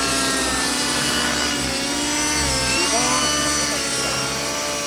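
ALIGN T-REX 700 Nitro radio-controlled helicopter in flight: its two-stroke nitro glow engine and rotor head running at a steady high buzz. The engine note dips and shifts a little past the middle as the helicopter manoeuvres.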